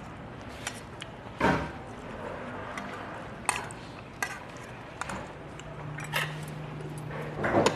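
Metal spoon clinking and scraping against a stainless steel bowl in a string of short, scattered clinks, with chewing between them. A steady low hum starts about two-thirds of the way in.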